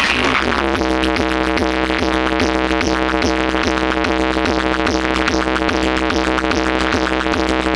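Electronic DJ sound-check music: a heavy, steady deep bass under layered synthesizer tones, with a fast even beat of about three to four pulses a second.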